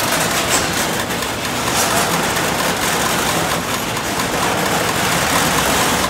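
Commercial garage door operator running, driving the door closed: a loud, steady mechanical din of motor, chain drive and moving door. This is a test run of newly adjusted limit settings.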